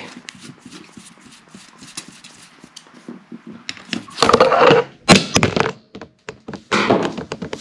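Faint small clicks of a screwdriver working at a fan's silicone corner pads. About four seconds in, the camera and its mount are knocked over, and three loud clusters of thuds and clatters follow over the next few seconds.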